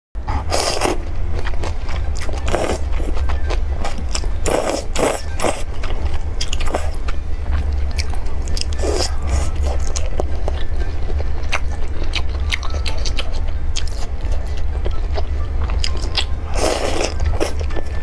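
A person slurping and chewing crossing-the-bridge rice noodles in spicy broth: short wet slurps every few seconds, the longest near the end, between many small chewing clicks.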